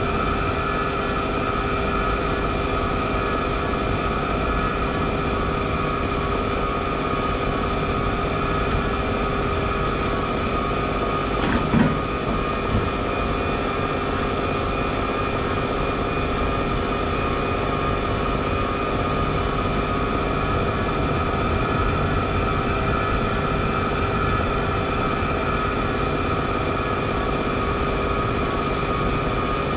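Steady traffic and road noise picked up by a camera mounted on the outside of a car, with a brief louder sound about twelve seconds in.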